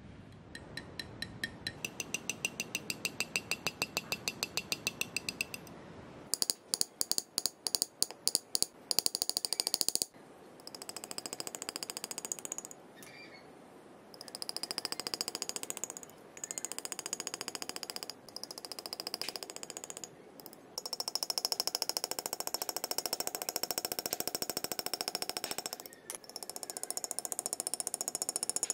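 Rapid mechanical tapping of a powered engraving or chasing handpiece against a silver knife fitting set in pitch, in runs of a few seconds with short pauses. Some runs carry a thin steady whine, and in one run a few seconds in the tapping comes as separate louder strokes.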